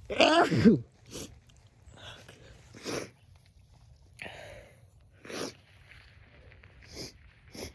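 A person sneezes once, loudly, with a falling voiced cry. Then comes a string of about seven short sniffs, one every second or so, sniffing back a runny nose.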